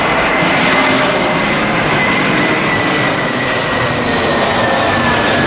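Jet airliner passing low overhead: a loud, steady roar with a thin whine that slowly falls in pitch.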